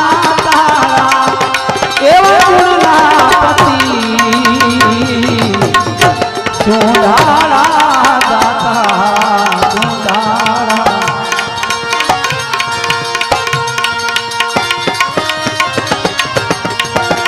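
Bhajan accompaniment: tabla playing a fast, dense rhythm under sustained harmonium chords, with a wavering melodic line in the first half that thins out in the second.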